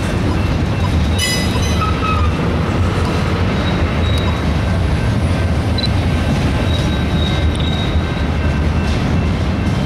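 Freight cars rolling past: a steady rumble of steel wheels on rail, with a short high-pitched wheel squeal about a second in and fainter squealing tones later.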